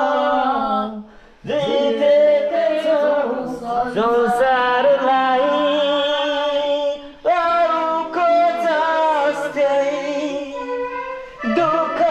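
A man singing into a handheld karaoke microphone: long held notes with vibrato, broken by short breaths about a second and a half in and again near seven seconds. A keyboard holds low notes underneath.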